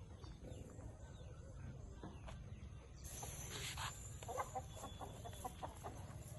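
A run of short, quick animal calls in the second half, over a steady low background rumble, with a brief hiss starting about halfway through.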